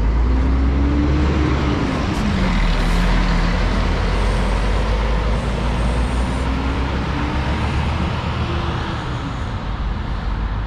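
Marcopolo G7 1800 DD four-axle double-decker coach pulling away, its diesel engine running under load with a low rumble. The engine note rises, drops about two seconds in, then climbs again and drops near the end as the coach moves off and fades a little.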